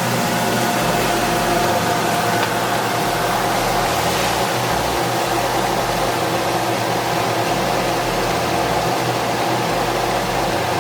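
Wet chopped bok choy sizzling steadily in hot oil in a cooking pot, a loud even hiss.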